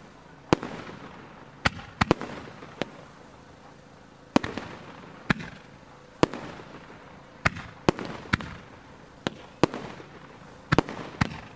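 Aerial fireworks shells bursting in a professional display: a string of about fifteen sharp bangs at uneven spacing, some in quick pairs, each trailing off in echo.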